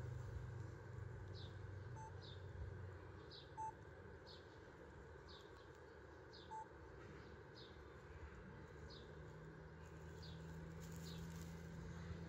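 Faint outdoor ambience: a short, high chirp repeating about once a second over a soft hiss, with three brief clear beeps in the first seven seconds and a low hum fading early and returning in the last few seconds.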